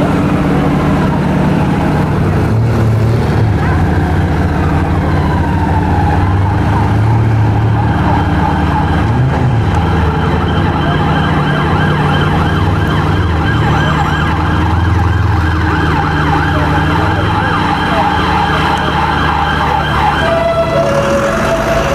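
An emergency vehicle's siren wails in city traffic, its pitch sweeping up and down, then switches to a two-tone pattern near the end. Underneath, the steady idle of a Koenigsegg Agera RS1's twin-turbo V8 runs throughout.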